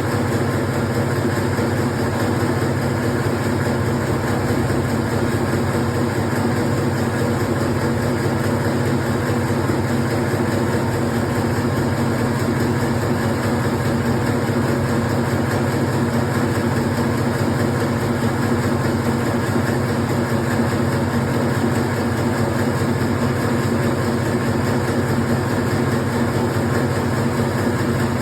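Electric meatball-forming machine running steadily, a constant mechanical hum and clatter with no change in speed.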